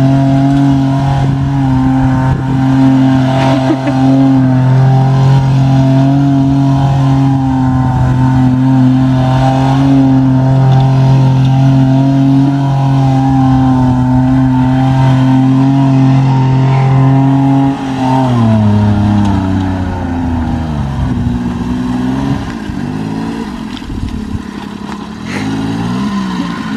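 Suzuki Carry mini truck's small three-cylinder engine held at steady high revs while the truck circles in mud, then the revs drop about two-thirds of the way through and rise and fall unevenly as it slows and drives up.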